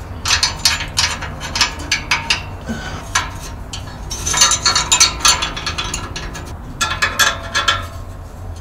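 Socket ratchet wrench clicking in quick runs while tightening the nuts of a U-bolt exhaust clamp, about four runs with short pauses between.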